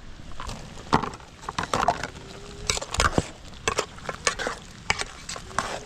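A series of irregular sharp knocks and clicks, several a second, with faint brief pitched sounds in between.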